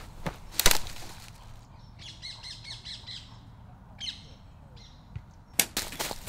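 Footsteps on dry leaf litter for about the first second, then a songbird singing a fast run of repeated notes for over a second, followed by two short phrases. Footsteps on the leaves start again near the end.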